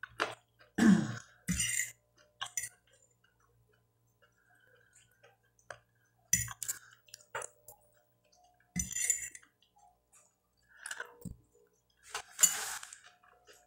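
Eating sounds: a metal fork clinking and scraping on a plate, with chewing, in short scattered bursts separated by quiet gaps. A longer, noisier burst comes near the end.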